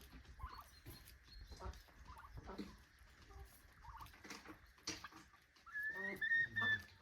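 Poultry calling in short repeated calls, the loudest a drawn-out high call near the end, with scattered clicks and knocks.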